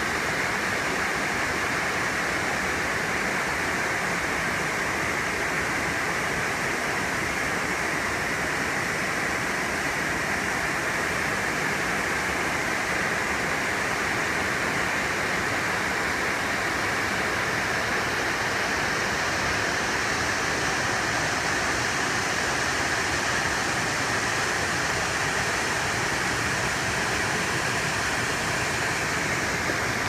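Mountain waterfall cascading down a rock face onto boulders: a steady, unbroken rush of falling water.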